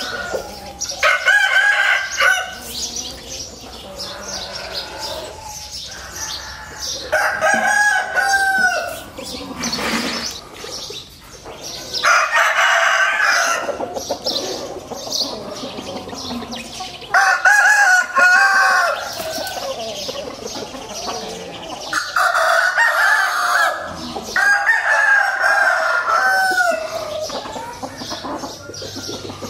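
Game roosters crowing, about six crows spread out, each lasting a second or two and ending on a falling note.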